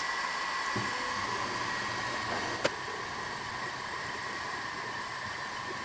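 Enjoywood CEL-E10 diode laser engraver running an engraving job: its laser-module cooling fan gives a steady hiss with a faint high whine, and there is one sharp click about two and a half seconds in.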